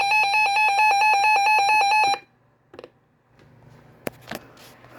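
Weather alert radio sounding its alarm: a loud, rapidly pulsing electronic beep that cuts off about two seconds in, followed by a few faint clicks.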